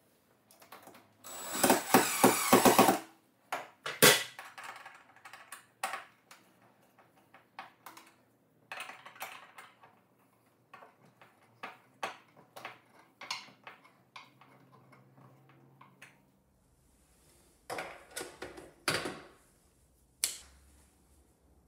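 DeWalt cordless impact driver rattling as it drives a screw into the wall for about two seconds, followed by a sharp click and many small clicks and taps of a metal recessed toilet paper holder being fitted by hand. Two more short bursts of noise come near the end.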